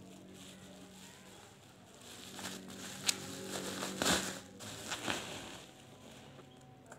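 Plastic bubble wrap rustling and crinkling as it is pulled off a cardboard box, with a few sharp crackles about three, four and five seconds in.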